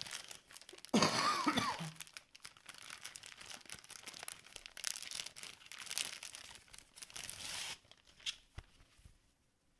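Clear plastic wrapping crinkling and tearing as a sealed plastic bag is handled and opened. The loudest burst of crinkling comes about a second in, and the crackling dies down to a few faint clicks near the end.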